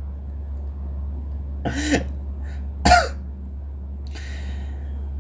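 A man coughs twice, about a second apart, the second sharper, over a steady low electrical hum from the microphone.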